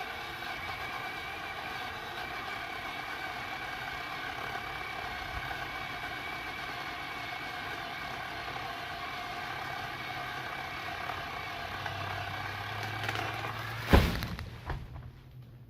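Worx WG323 20V cordless pole saw's electric motor running with a steady whine as its chain cuts wood. About fourteen seconds in it stops with a loud thump, followed by a few lighter knocks.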